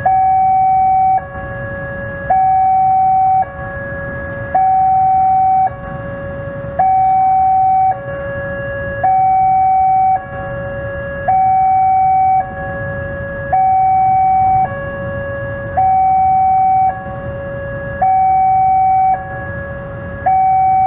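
Railway level-crossing warning alarm sounding a two-tone electronic hi-lo signal, switching between a higher and a lower tone about every second, the higher tone louder. It is the warning that a train is approaching while the barriers are down. Under it runs a low rumble of waiting road traffic.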